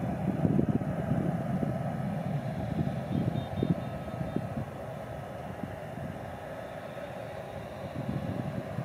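Steady low rumble of distant jet airliner engines across the airfield, with wind buffeting the microphone in gusts that ease about halfway through.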